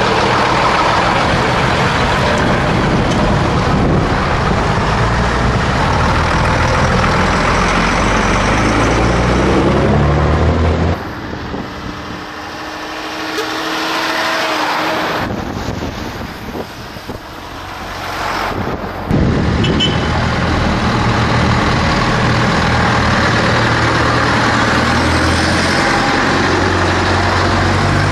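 Vintage bonneted Scania trucks' diesel engines running as the trucks drive past, engine pitch rising as they accelerate away. The sound drops quieter for several seconds in the middle, then comes back loud.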